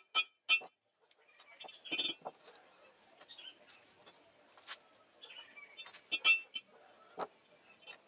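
Ball-peen hammer striking steel rebar on a steel I-beam anvil, in short bursts of quick ringing taps near the start, about two seconds in and about six seconds in, with lighter clinks of the bars being handled between.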